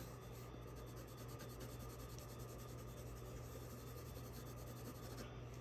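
Colored pencil shading on blue construction paper: the pencil rubbing steadily back and forth across the paper.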